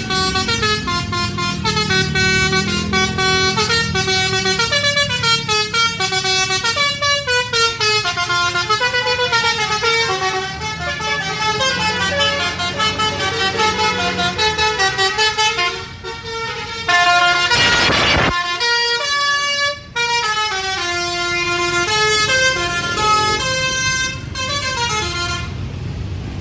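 Tour bus's multi-tone 'telolet' horn playing a tune of quick stepped notes over the low running of the bus engine. About seventeen seconds in, there is a loud burst of hiss lasting about a second and a half.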